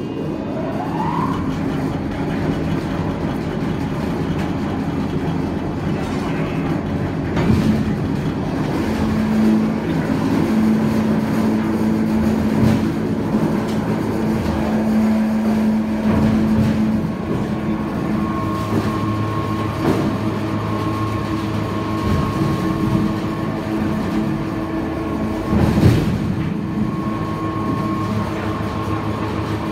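JR-300 electric meat grinder running: the motor spins up with a rising whine at the start, then runs with a steady machine hum whose tone shifts a little past halfway, with a couple of brief knocks.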